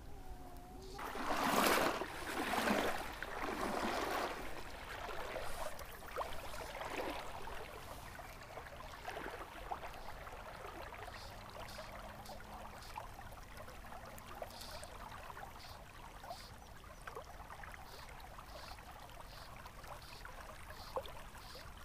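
Water splashing in a few loud surges over the first several seconds, then a river flowing steadily and quietly.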